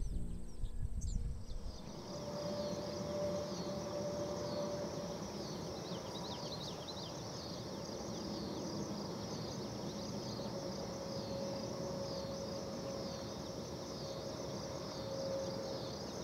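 Wetland ambience: a high, regularly pulsing insect chorus over steady background noise, with a faint steady low tone. There are a few bird chirps with low wind rumble in the first two seconds, and more chirps about six seconds in.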